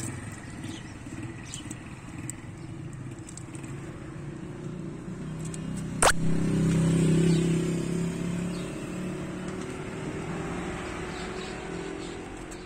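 Low rumble of a motor vehicle, swelling louder around the middle and then slowly fading, with one sharp click about halfway through.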